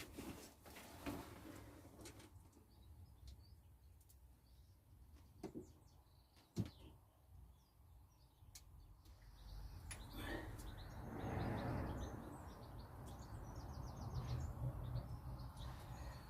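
Faint birds chirping, with a few sharp clicks and knocks, one louder about six and a half seconds in, and a soft rustling noise that rises about ten seconds in.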